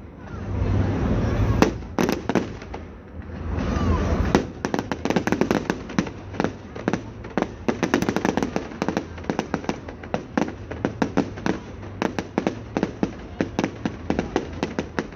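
Fireworks display: two deep, swelling booms in the first four seconds, then a dense run of sharp bangs and crackles, several a second.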